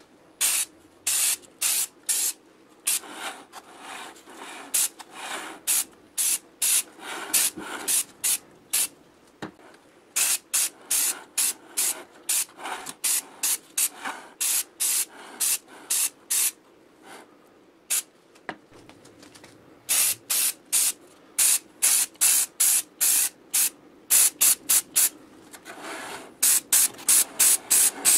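Spray paint hissing on in many short bursts, one quickly after another, with brief lulls about ten and eighteen seconds in.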